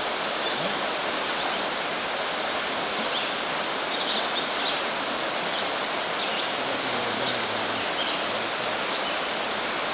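Creek water running, a steady even rushing.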